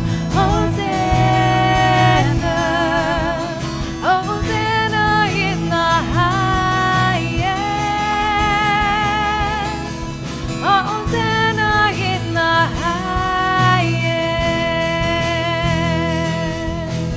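Worship band music: a singer holding long, wavering notes over guitar and a steady low accompaniment.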